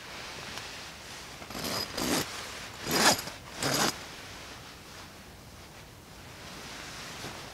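A sleeping bag being zipped shut from inside in four quick pulls of the zipper, with the bag's fabric rustling around them.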